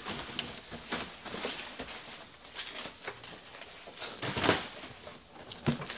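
Cardboard boxes rubbing and scraping as a large retail box is slid out of its shipping carton, with scattered knocks and a louder scrape about four and a half seconds in.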